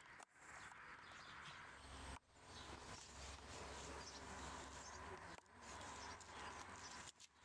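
Faint outdoor ambience, a steady low hiss that drops out briefly about four times.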